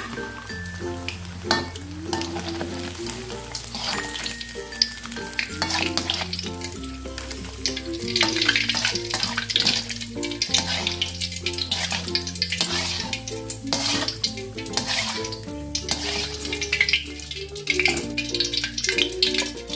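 Battered shrimp deep-frying in hot oil, a steady sizzle full of small crackles and pops that grows louder about eight seconds in. Background music with a steady bass line plays underneath.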